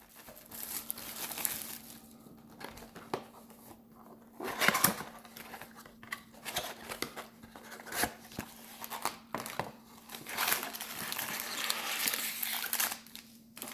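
Plastic shrink-wrap on a sealed trading-card box crinkling and tearing in irregular bursts as the box is cut open, with a few sharp clicks. A faint steady hum sits underneath.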